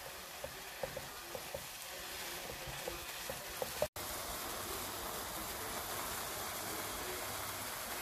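Cauliflower rice with vegetables and shrimp sizzling in a frying pan, with small clicks of the spatula stirring it for the first few seconds. A brief dropout just before four seconds is followed by a steady sizzle.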